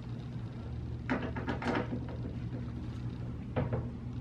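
A few light clicks and knocks from a screwdriver working on the cabinet's door hinges and the doors being handled, clustered about one to two seconds in and once more near the end, over a steady low hum.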